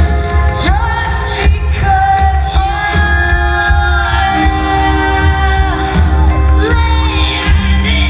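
Live rock band playing loud, with two male singers over electric guitar, bass guitar and drums; the low end is heavy and boomy.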